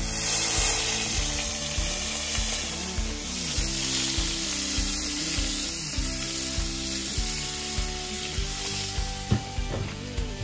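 Background music over a steady sizzling, crackling hiss that starts suddenly at the beginning.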